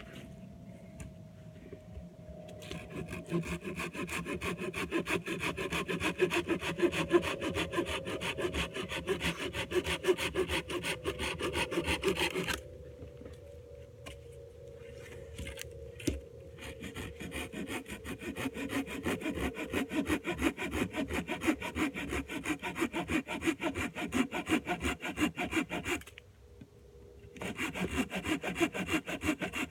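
Hand saw cutting through dry wood for firewood in steady back-and-forth strokes. The sawing stops about twelve seconds in, starts again lightly and builds up, then pauses briefly near the end before going on.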